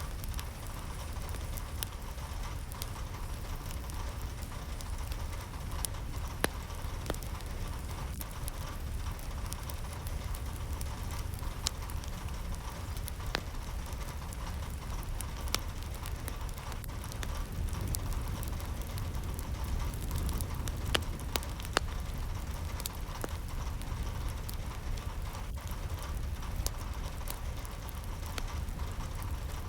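Steady rain with many scattered sharp drops tapping over a constant low rumble.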